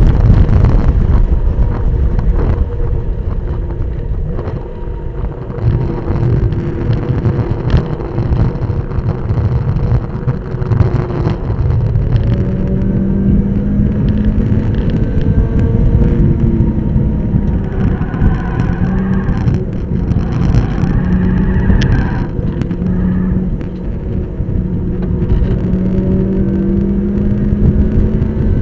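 Mazda MX-5 race car's four-cylinder engine at racing speed, heard from inside the cockpit under heavy wind and road rumble. It eases off briefly about five seconds in and again near the end, and in between the engine note climbs repeatedly as it pulls through the gears.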